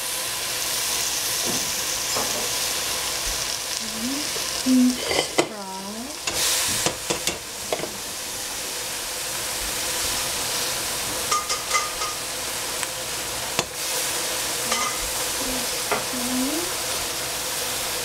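Vegetables sizzling as they fry in a stainless steel pot, stirred and scraped with a wooden spatula. Around five to eight seconds in there is a cluster of knocks, scrapes and squeaks as bean sprouts are tipped in and turned over.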